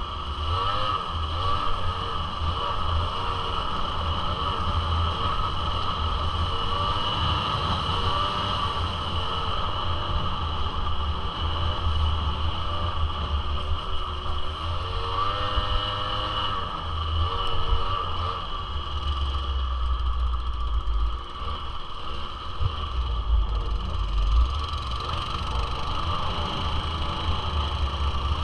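1996 Suzuki LT80's small two-stroke single-cylinder engine running under way, its pitch rising and falling as the throttle opens and closes, over a heavy, uneven low rumble.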